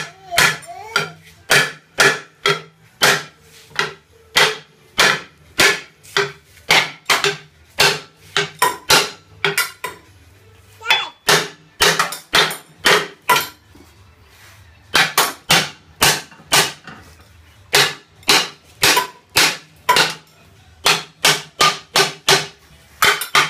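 Hammer blows tapping around the heavy drum-brake backing plate of a Chevy 14-bolt full-float axle to break it loose from the axle flange. It is a steady run of sharp strikes, about two a second, that pauses briefly twice about halfway through.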